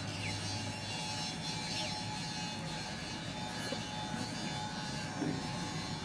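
Steady distant engine rumble with a constant low hum.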